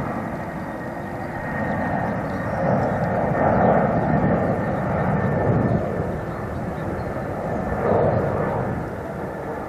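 Airbus A330-200 twin-engine airliner departing, its jet engines at takeoff power: a steady, dense rumble with a faint high whine, swelling louder about three seconds in and again near the end.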